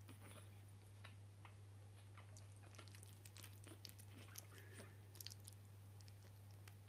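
Faint wet clicks and smacks of two pug puppies mouthing and play-biting each other, mostly clustered in the middle, over a steady low hum.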